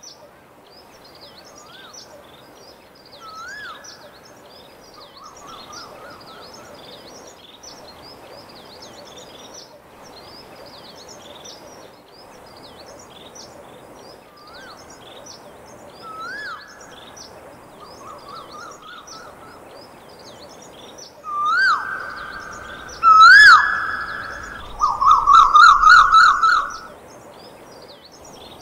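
Quick bird-like chirping all through, with louder whistle-like sweeps that rise and fall, some held, and warbling trills. The whistles and trills repeat in the same order about every thirteen seconds and are loudest near the end.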